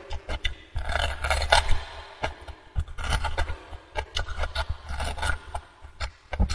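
Close-up eating sounds of gnawing and sucking at a braised beef bone for its marrow: an irregular run of wet clicks and scrapes, with low bumps.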